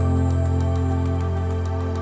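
Background music: a held chord of steady, sustained tones, slowly getting a little quieter.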